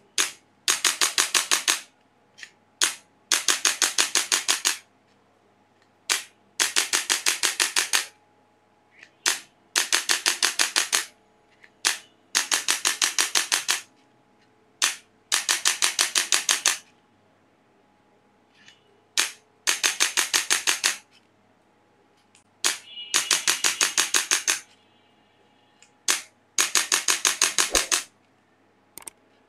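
Handheld chiropractic adjusting instrument firing repeated bursts of rapid clicks, about ten a second. Each burst lasts one to two seconds and comes roughly every three seconds, often with a single click just before it.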